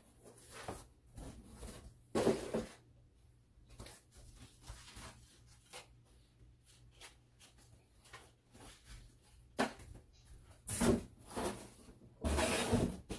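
Irregular rustles, taps and clunks of kitchenware and packaging being unpacked and handled, with louder clatters about two seconds in and near the end.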